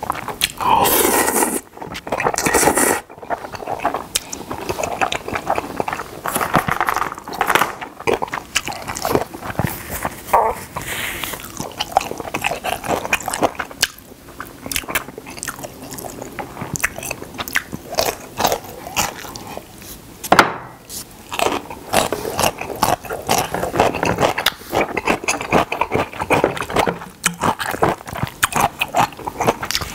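Close-miked eating: Jjapagetti black-bean noodles slurped in the first few seconds, then pickled yellow radish (danmuji) crunched and chewed, with wet mouth sounds and many short crackles.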